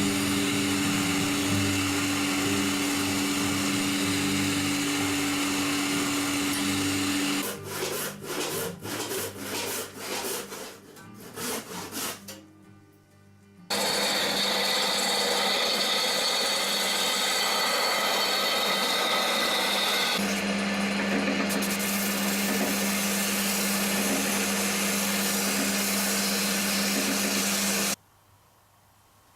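A power tool running steadily. It breaks into short on-off bursts about seven seconds in, falls quiet briefly, starts again and runs until it cuts off suddenly just before the end.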